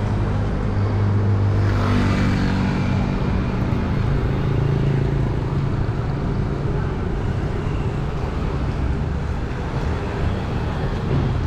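Road traffic: vehicle engines running steadily as traffic goes by, with a vehicle passing close about two seconds in.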